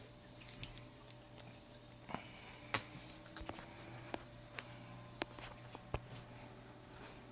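A few scattered, irregular computer keyboard key presses, faint, over a low steady hum.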